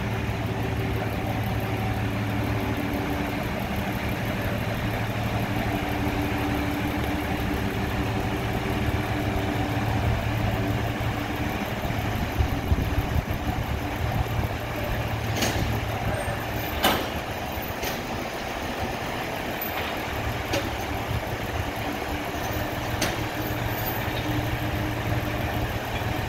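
John Deere tractor engine running steadily at low speed while it tows another tractor, with a few sharp knocks in the second half.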